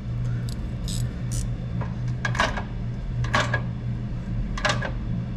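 Metal tools and hardware clinking and clattering in about six separate knocks while a steel frame section is bolted up for a test fit, over a steady low hum.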